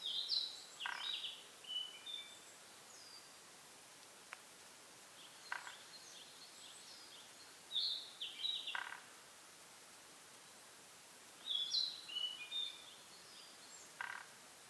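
A wild bird calling in three bursts of quick, high chirping notes, each a couple of seconds long and roughly five seconds apart, over a faint outdoor hiss.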